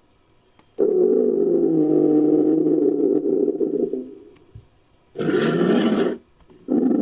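Rhinoceros groaning: a long, low groan of about three seconds, a shorter and noisier call about five seconds in, and another low groan starting near the end.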